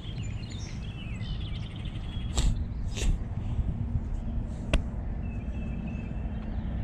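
Wind rumbling on the microphone, with birds chirping during the first second or so. Three short sharp swishes and clicks from the fishing rod and baitcasting reel being handled come about two and a half, three and nearly five seconds in.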